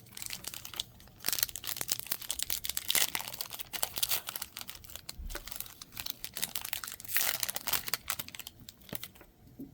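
Foil trading-card pack wrapper being torn open and crinkled in the hands, a dense crackle with louder rustles about three and seven seconds in.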